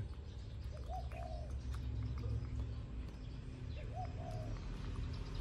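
A dove cooing, a short two-part coo that comes twice, about three seconds apart, over a low steady rumble.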